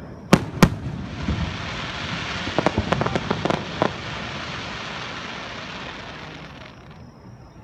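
Aerial firework shell bursting, with two sharp bangs in quick succession. A long crackling hiss follows as the stars burn and fall, thickest with crackles about three seconds in, then dies away.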